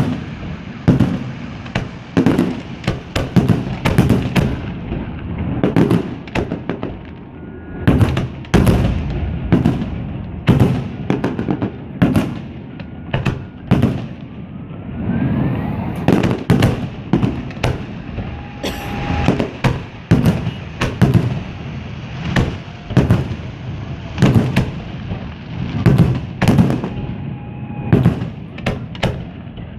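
Fireworks display: rapid bangs of exploding shells, often several a second, each with a rolling echo and crackle.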